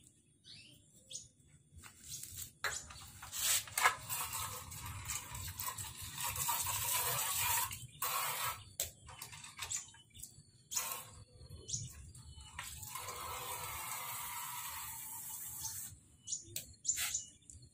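Water splashing and pouring in two spells of several seconds each, with scattered clicks and knocks in between.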